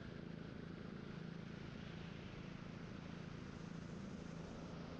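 Helicopter in flight: a steady drone from the engine and rotor with a few low hum tones, under an even rush of air noise.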